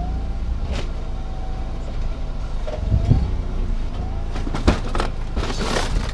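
A machine's engine running at a steady low rumble while scrap steel is loaded onto a trailer, with several sharp metal knocks and clanks.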